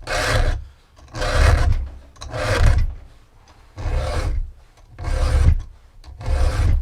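A hand file stroking across the cutters of a Husqvarna T545 chainsaw chain, six rasping strokes at an even pace, about one a second, during sharpening.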